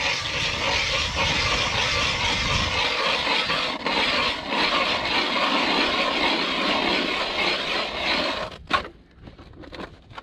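Hand-cranked ice auger boring through ice: its steel blades shave the ice with a steady scraping grind. The grind stops about eight and a half seconds in, followed by a single knock.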